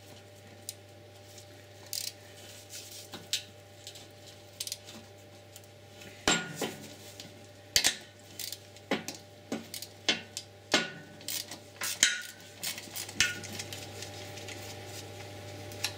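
Scattered sharp metallic clicks and clinks, most of them between about six and thirteen seconds in, from a ratchet with a 13 mm socket undoing the nut on an Audi RS6 starter motor's solenoid terminal while the cable and starter are handled.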